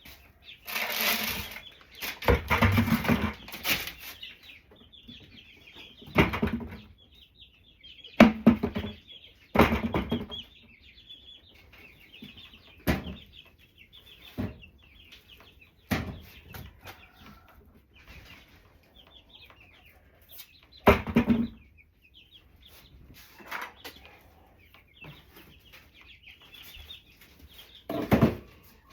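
Chickens clucking steadily, broken by a series of loud knocks and rustles, several in the first four seconds and single ones later on.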